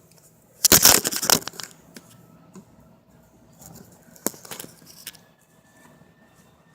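Lennox air conditioner making an odd noise on startup: a quick burst of crackling, rattling clicks about a second in, then a few scattered sharp clicks over a faint steady tone.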